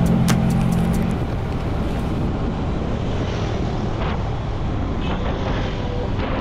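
Wind buffeting the microphone over the engine and road noise of a motorbike being ridden.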